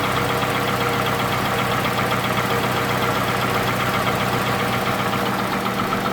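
Toyota Camry's 2AZ 2.4-litre four-cylinder petrol engine idling steadily with a constant knocking clatter. It is the sound of a badly worn engine, one that is pouring smoke out of the engine itself rather than the exhaust pipe.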